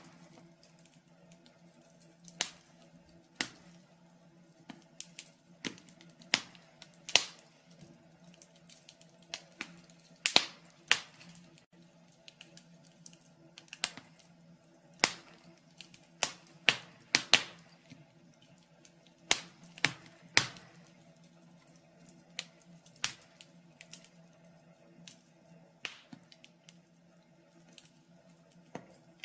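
Wood fire burning in a fireplace, crackling with irregular sharp pops and snaps, one or two a second, some louder than others, over a faint steady low hum.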